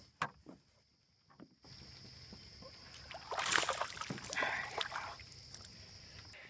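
A small largemouth bass splashing at the water's surface as it is hooked and reeled in. The loudest splash comes about three and a half seconds in, and more splashing follows for a second or so.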